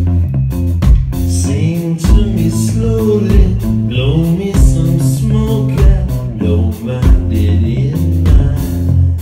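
Live band music: a male voice singing over strummed acoustic guitar, bass and a steady drum beat.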